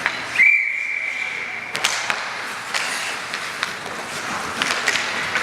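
Referee's whistle blowing one long steady blast of about a second and a half, followed by scattered sharp clacks of hockey sticks and pucks on the ice.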